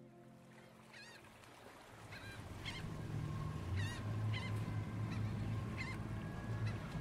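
Birds calling, a string of short honking calls repeating about once or twice a second, over a low steady rumble that grows louder about two seconds in.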